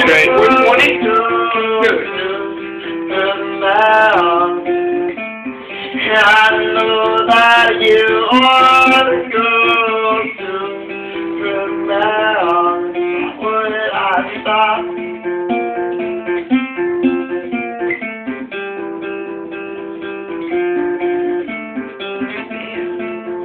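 Acoustic guitar being played, with a man singing over it for the first ten seconds or so; after that the guitar plays on alone.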